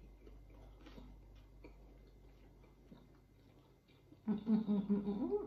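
Quiet chewing with faint mouth clicks, then about four seconds in a woman's closed-mouth "mmm" hum.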